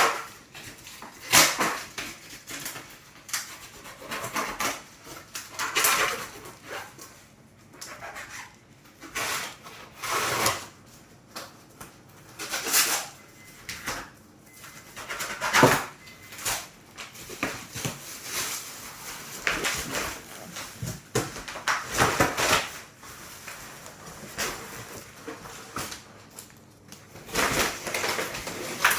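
Cardboard box and packing being opened and handled by hand: irregular rustles, scrapes and knocks.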